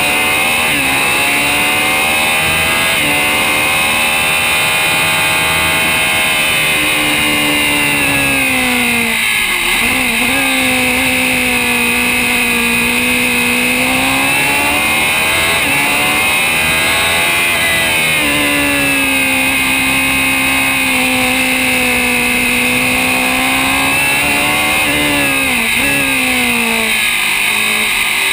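Open-wheel race car's engine heard onboard at racing speed, its note climbing under acceleration and holding, then dropping sharply three times as the car brakes and downshifts for corners.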